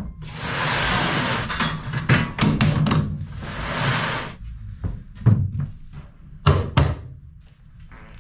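Loose boards and gear being shifted over a wooden floor: two long scrapes of something being dragged, with several sharp knocks and thuds of things being set down.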